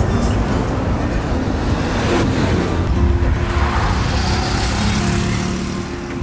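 Steady engine and road rumble from riding in the back of a moving safari jeep, with background music over it.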